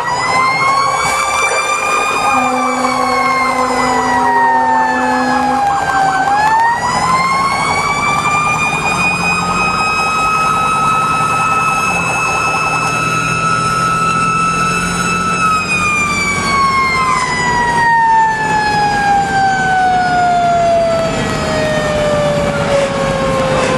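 Fire truck siren on a responding rescue-engine, over the truck's engine and road noise. The pitch rises, dips, climbs again and holds high for several seconds, then falls slowly through the last eight seconds. A steady lower tone sounds from about two to six seconds in.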